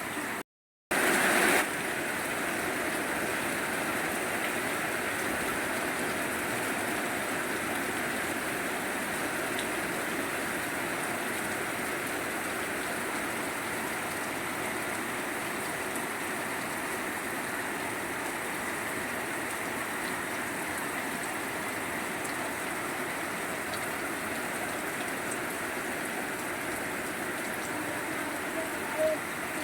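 Steady rainfall, an even hiss of water. A little under a second in it drops out to silence for a moment, comes back briefly louder, then settles to the same steady level.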